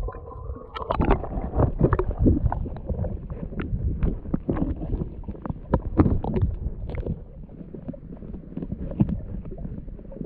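Underwater sound picked up by a submerged camera: a muffled low rumble of moving water, with scattered clicks and knocks throughout.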